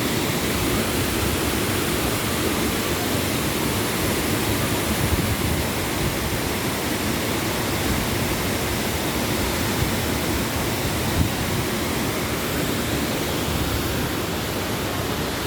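Wahkeena Falls, a waterfall, giving a steady, even rush of falling water.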